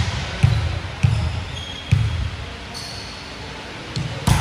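Volleyball thudding on the hardwood gym floor and being hit, echoing in the hall: three thuds in the first two seconds, then a sharper, louder hit near the end.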